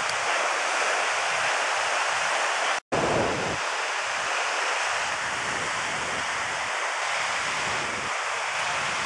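Ocean surf breaking and washing up on a sandy beach, a steady rushing hiss, with gusts of wind on the microphone. The sound cuts out for an instant about three seconds in.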